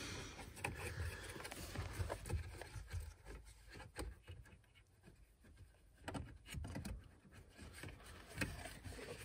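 Faint handling noises under a dashboard: scattered light clicks and knocks at irregular moments over a low rumble, as hands fumble to release a plastic wiring connector.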